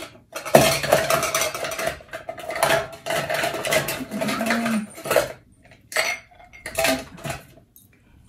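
Ice cubes clattering against steel as they are dropped into a metal Boston shaker tin, a continuous rattle for about five seconds, then two short clinks near the end.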